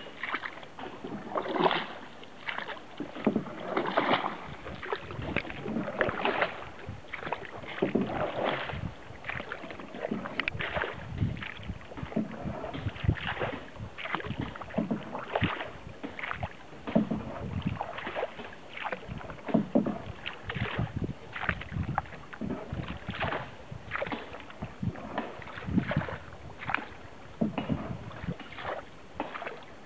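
Wooden paddle working a wooden canoe through river water: repeated irregular splashes and knocks, with water sloshing along the hull.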